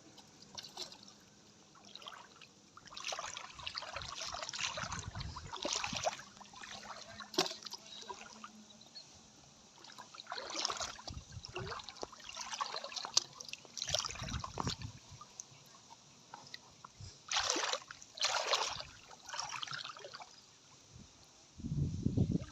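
Water splashing and sloshing in irregular bursts, with quieter gaps between them.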